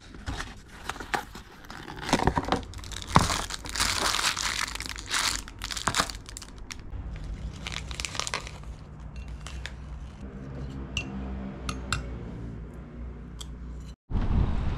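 A small cardboard box and its paper packaging being opened, with dense tearing and crinkling for the first several seconds. Then quieter crinkling of a plastic snack wrapper and a few light clicks. Near the end it cuts to wind noise on the microphone.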